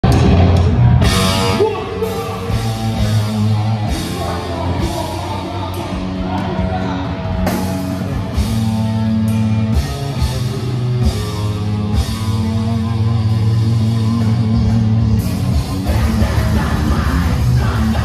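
Live heavy metal band playing through a concert PA: heavy guitars and bass hold long low chords under cymbal crashes, then the playing grows denser and louder about sixteen seconds in, with yelled vocals.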